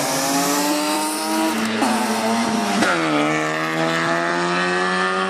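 Rally car engine revving hard under acceleration, its pitch climbing steadily. About halfway through the sound breaks and drops sharply in pitch, then climbs again.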